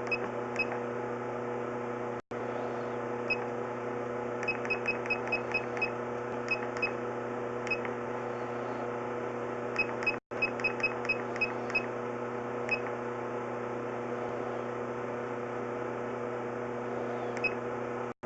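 Steady electrical hum from electronic equipment, with short high electronic beeps in quick runs like button presses. The sound cuts out completely for an instant twice.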